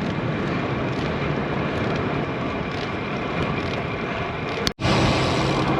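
Steady wind rushing over the microphone of a bicycle riding into a strong headwind, mixed with road noise. The sound cuts out for an instant about three-quarters of the way through.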